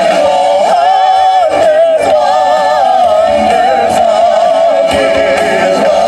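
A vocal group singing long held notes in harmony with vibrato, amplified through handheld microphones.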